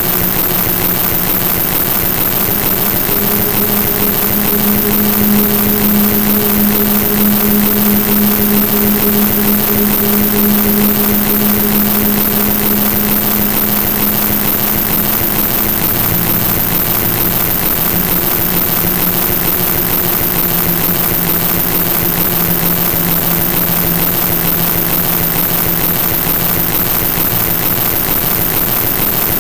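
A loud, steady electronic noise track: an even hiss across the whole range, strongest in the very high treble, over a low hum of a few held tones. The hum steps slightly lower about halfway through.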